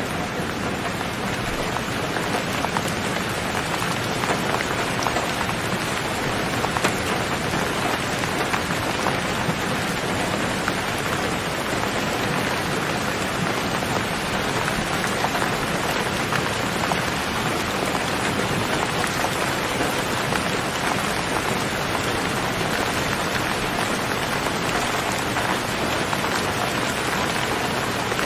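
Steady rain, an even hiss with many scattered individual drop taps.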